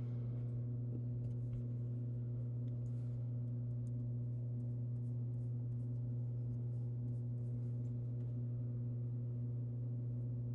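Steady low electrical hum with a stack of even overtones, unchanging throughout, with faint scattered ticks over it.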